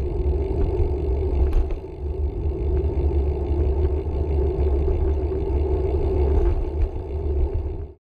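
Wind buffeting and road rumble on a handlebar-mounted camera on a moving bike: a steady, heavy low rumble with a few faint clicks. It cuts off suddenly near the end.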